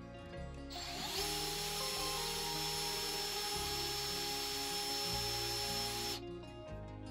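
Cordless drill running steadily as it bores a mounting hole into the metal saddle of a benchtop milling machine, for a DRO scale's read head. It starts about a second in and stops about a second before the end, over background music.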